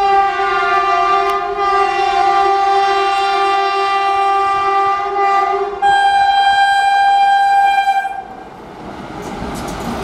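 Indian Railways WAP-4 electric locomotive's horn: one long blast of about six seconds, then a higher-pitched blast of about two seconds. After the horn stops, the rolling noise of the passing train.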